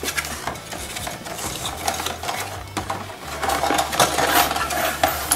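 Cardboard model-kit box being opened by hand: the end flap folding back and the plastic sprues and paper inside rustling and clicking as they are slid out, with many small irregular crinkles and taps.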